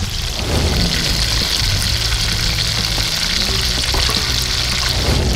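Two whole tilapia frying in hot oil in a stainless steel pan: a steady sizzle over a low rumble.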